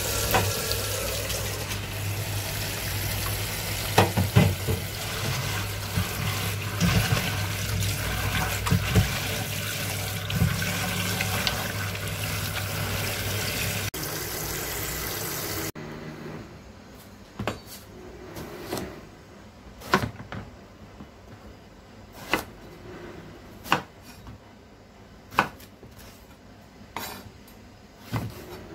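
Tap water running into a stainless steel bowl in a steel sink, with a few knocks as leaves and an eggplant are rinsed. The water cuts off about halfway. A kitchen knife then chops eggplant on a wooden cutting board: about seven separate strokes, a second or two apart.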